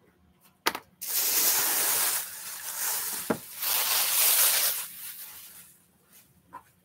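A clear plastic bag rustling and crinkling for about four seconds as it is pulled off a football helmet, with a sharp click just before and a knock partway through.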